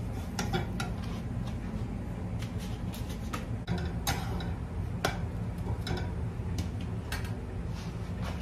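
A pancake cooking in a nonstick frying pan on a lit gas burner: scattered light ticks and taps, about one a second, from the pan and spatula, over a steady low hum.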